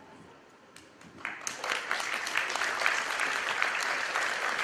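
Audience applauding: the clapping starts about a second in, builds quickly and then carries on.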